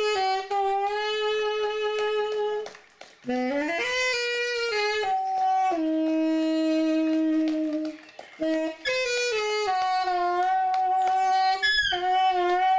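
Saxophone playing a slow melody of long held notes, in phrases broken by short breaths about three and eight seconds in.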